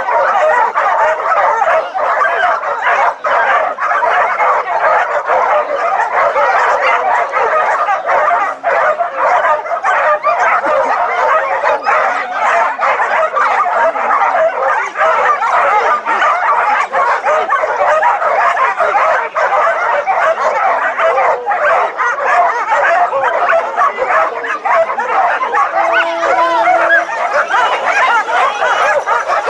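Many harnessed canicross dogs barking and yelping at once in a continuous, dense din, excited and straining before the start. Near the end a brief steady tone sounds, the start signal.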